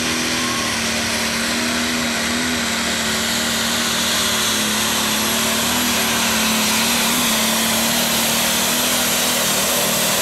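John Deere Pro Stock pulling tractor's single-turbocharged diesel engine, loud and held at high, steady revs, with a thin high whistle over it.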